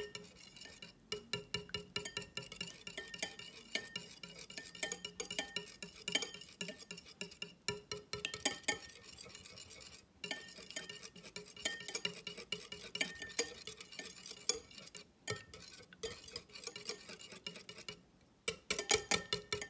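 A utensil beating a mixture of egg, mayonnaise and olive oil in a bowl, with quick repeated clinks against the bowl and a few short pauses. The mixture is being stirred until it turns into a smooth cream.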